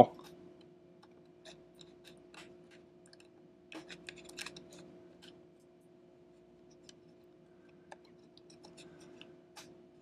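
Faint clicks and scratching of fingers handling and pushing the small plastic connector of an iMac's LED backlight cable into its socket on the circuit board, a little cluster of clicks about four seconds in, over a steady low hum.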